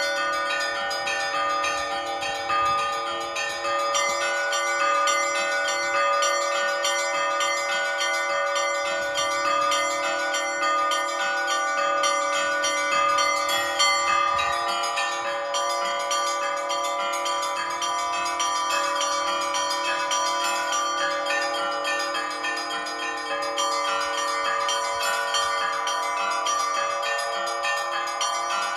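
Orthodox church bells ringing a continuous peal: small bells struck rapidly in a dense pattern over the steady ringing of larger bells.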